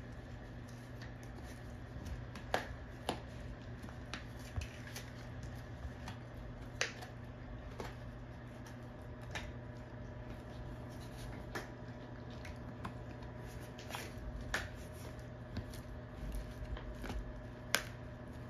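A shepherd dog chewing a long chew bone: irregular sharp clicks and cracks of its teeth on the chew, a second or more apart, over a steady low hum.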